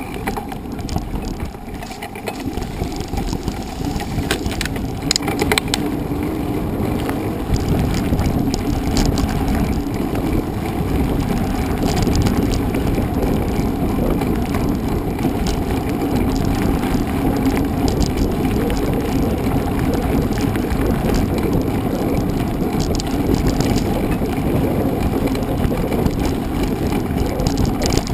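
Mountain bike being ridden over a trail, heard from a camera on the bike or rider: steady rolling and wind noise with rattles and a few sharp knocks, a cluster of them about four to five seconds in.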